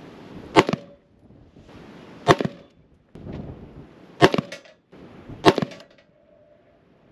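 Four single shots from a Maxim Defense PDX 7.62x39 short-barrelled rifle, fired one to two seconds apart while its sights are being zeroed. Each is a sharp crack with a short ring after it.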